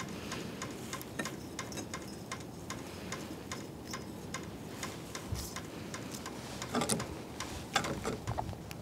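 Soft, irregular clicks and crackles of thread seal (PTFE) tape being pulled off its roll and wrapped around the threaded end of a copper pipe fitting, with a denser, louder run of clicks near the end.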